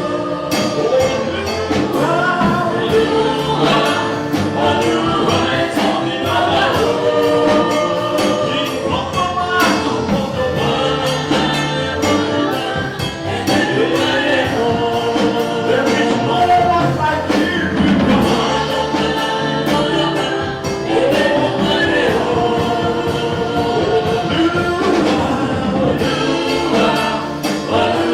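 Gospel music with a choir singing over a band, with a steady beat.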